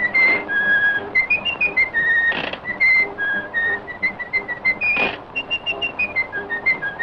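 Whistled melody on an early cartoon soundtrack: a jaunty tune of short held and sliding notes over a light band accompaniment. Short hissing puffs come twice, a few seconds apart.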